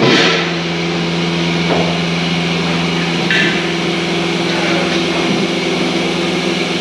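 Milking-parlour machinery running with a steady hum, with a short hiss right at the start and another brief one about three seconds in.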